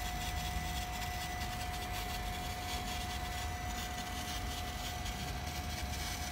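Panasonic booster water pump running steadily while a tap is open: a low motor hum with a constant thin whine.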